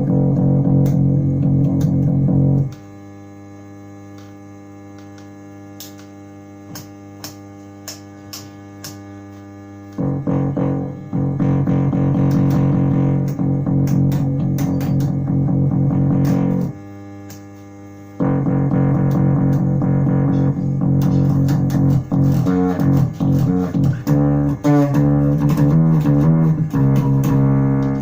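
Electric bass played through an onboard passive diode fuzz (four 1N5819 Schottky diodes, Black Ice style), giving sustained distorted notes and phrases. In the pauses between phrases a steady hum stays audible, from the unshielded onboard wiring.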